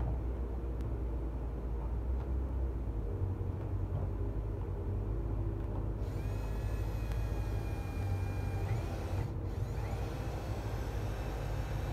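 Cordless drill running slowly with its bit boring into the plastic wall of a food-grade barrel: a steady motor hum, with a thin higher whine joining about halfway through and breaking off briefly near the end. The bit is a little dull, so the cut goes slowly.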